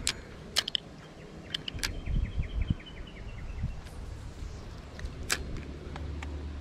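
Sharp clicks from a spinning rod and reel being handled during a cast, several in the first two seconds and one more about five seconds in. A faint run of rapid ticks lasts about two seconds in the middle.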